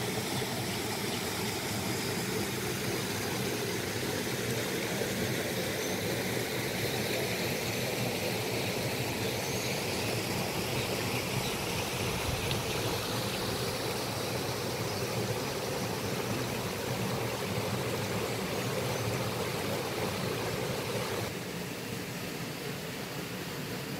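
Steady rushing of water from a shallow rocky stream and its small waterfall, becoming somewhat quieter about 21 seconds in.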